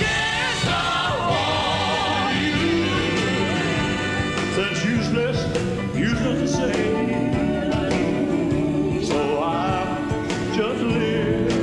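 Live concert recording of a band playing a ballad, with singing over it.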